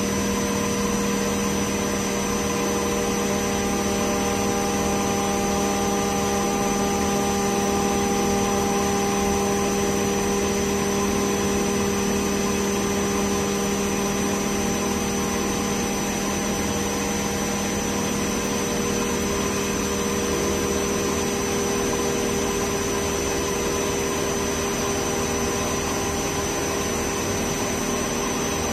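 MultiCam 5000 series CNC router spindle cutting 3/4-inch aluminum plate with a 1/2-inch spiral O-flute bit. It makes a steady machining whine of several even tones that holds without a break.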